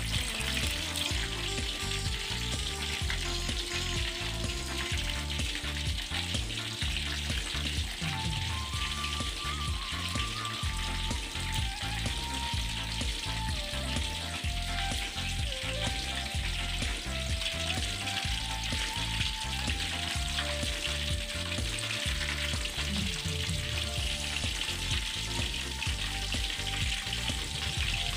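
Whole fish deep-frying in plenty of hot oil in a wok, a steady crackling sizzle that never lets up. Background music with a steady beat and a simple melody plays under it.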